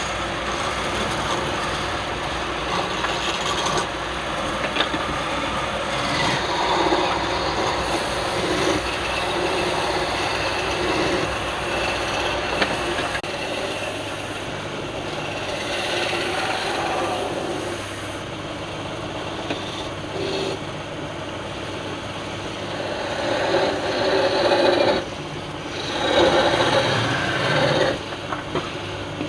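Wood lathe running, with a hand tool scraping and cutting against the spinning wood; the scraping swells and fades, loudest near the end, over a steady motor hum.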